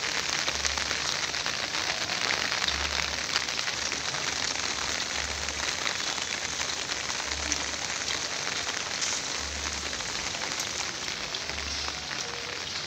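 Steady rain falling on paved ground and plants: an even hiss with scattered small drop ticks.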